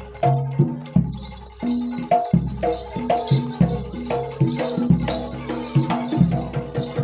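Jaranan Dor ensemble music: pitched metal percussion plays a repeating melody over deep jidor bass-drum beats. Sharp struck accents fall about three times a second, in a steady rhythm.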